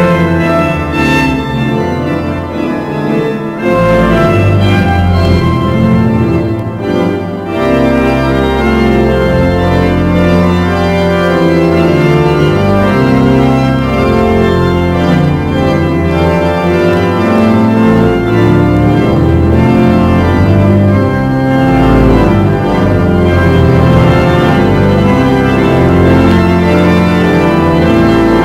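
The Eton College Chapel pipe organ playing loud, sustained full chords over deep pedal bass, with two short breaks between phrases in the first several seconds.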